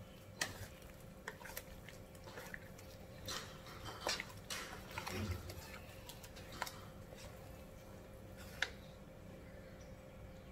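Black spatula stirring and scraping a blended spice paste frying in oil in a wok, with scattered scrapes and taps against the pan over a faint sizzle. The paste is being sautéed until fragrant and the oil separates from it.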